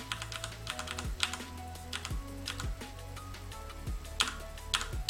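Computer keyboard keys pressed at irregular intervals as job output is paged through, over background music.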